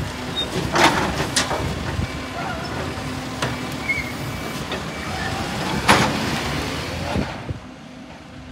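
Side-loading garbage truck running while its automated arm lifts a wheelie bin, tips it into the hopper and sets it back down, with sharp clanks of the bin against the truck about a second in and again, loudest, about six seconds in. The truck sound drops away near the end.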